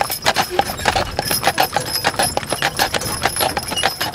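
Horses' hooves clip-clopping on asphalt road: a draft team pulling a wagon with saddle horses alongside, giving many irregular, overlapping strikes.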